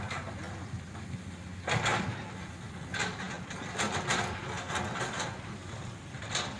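Hydraulic crawler excavator's diesel engine running steadily, with several sharp knocks and clanks from the machine's work.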